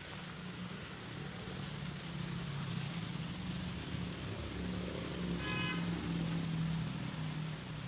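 A motor vehicle's engine running steadily nearby, a low wavering hum that grows a little louder through the middle. A brief high-pitched call cuts in about five and a half seconds in.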